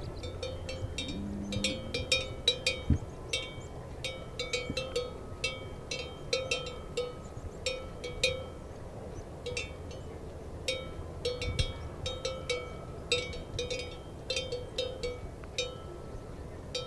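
Livestock bells (cencerros) clanking irregularly as grazing animals move their heads, sometimes in quick runs of two or three strikes, each with a short metallic ring.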